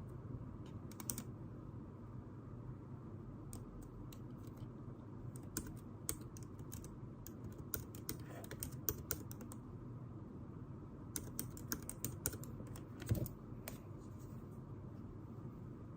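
Irregular clicks of typing on a computer keyboard, coming in short bursts with pauses between, over a steady low room hum. One louder knock near the end.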